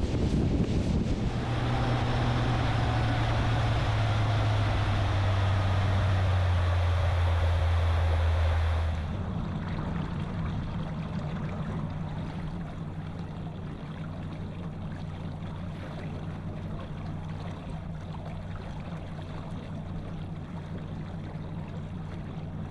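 A boat's outboard motor running with wind and water noise, its pitch dropping over several seconds; about nine seconds in it throttles back to a quieter, steady low running hum.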